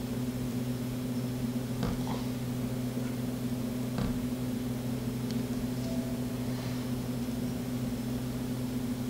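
Steady low electrical hum, with a few faint clicks about two and four seconds in.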